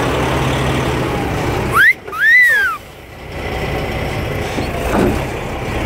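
A two-part wolf whistle, a quick rising note then a note that rises and falls, about two seconds in, over a steady engine hum.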